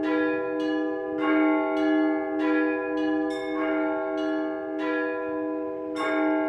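Orthodox church bells rung by hand from a belfry. Several bells are struck in a steady rhythm, about one stroke every 0.6 s, over the continuous ringing of a lower bell.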